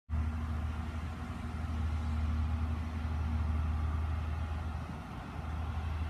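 A steady low rumble of an idling engine, with a faint hum on top that fades out about halfway through.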